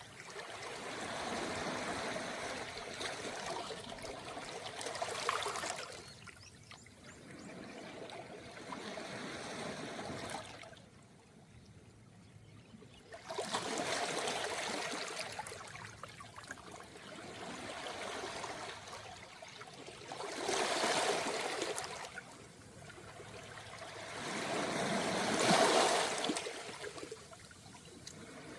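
Small, calm waves washing up a round-pebble beach. Each surge of water rises and fades over a few seconds, with a short lull near the middle.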